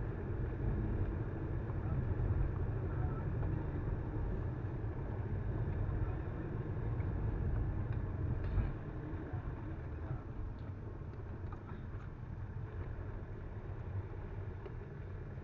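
Car driving at road speed, heard from inside the cabin: a steady low rumble of engine and tyres on the road. There is a brief bump about halfway, after which the rumble drops a little.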